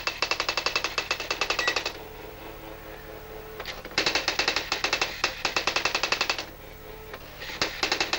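Robotron Erika S 3004 electronic daisy-wheel typewriter printing at about ten strikes a second, stopping twice between lines for a second or two with a faint steady hum before the strikes start again.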